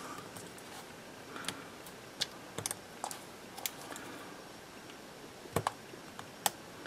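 Faint, irregular light clicks and scratches of a precision hobby knife blade cutting open the wrapping of a wired CMOS coin-cell battery pack. The sharpest clicks come near the end.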